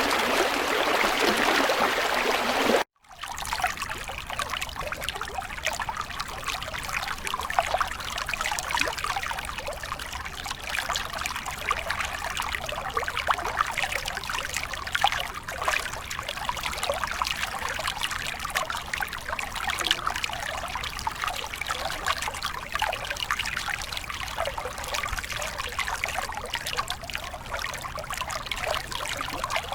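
Stream water flowing. About three seconds in it cuts off briefly, then gives way to a lighter trickle of many small splashes that runs on steadily.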